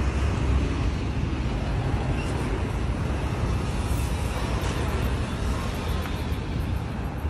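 Steady outdoor background noise: a continuous low rumble with a hiss above it, with no distinct knocks or other separate sounds standing out.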